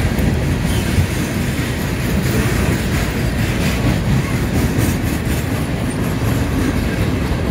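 A CSX freight train of insulated boxcars rolling steadily past at a grade crossing: a continuous, even rumble of steel wheels on the rails.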